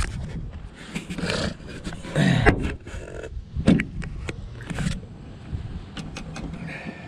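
Irregular clicks, knocks and scrapes of hands and tools working on parts in an engine bay.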